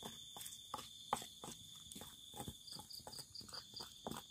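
Wooden pestle stirring wet sambal in a stone mortar (ulekan in a cobek): faint, irregular clicks and scrapes of wood on stone. Crickets chirp steadily in the background.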